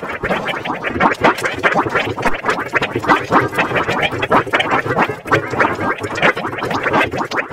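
Cartoon water-gurgling sound effect, heavily distorted and pitch-shifted in the 'G Major' meme style, giving a fast, choppy bubbling that keeps going without a break.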